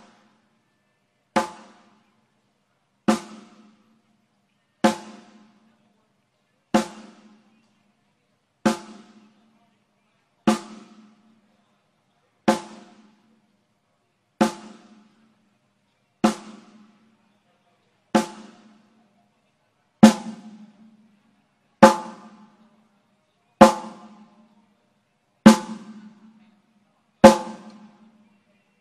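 A single drum from the kit struck once about every two seconds for a soundcheck, each hit ringing with a low tone that dies away within a second. The hits get noticeably louder about two-thirds of the way through.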